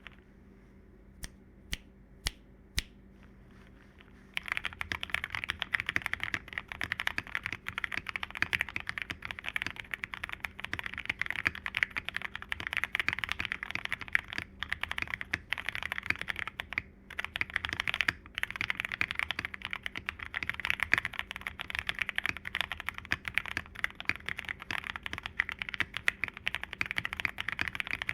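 FEKER JJK84 mechanical keyboard with lubed and filmed Gateron Milky Yellow linear switches and PBT keycaps, being typed on. Four single key presses come first, then fast continuous typing from about four seconds in.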